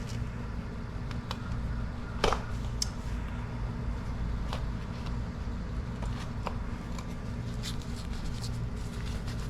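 Scattered knocks, clicks and rustles of someone moving about and handling things, over a steady low hum; the sharpest knock comes about two seconds in.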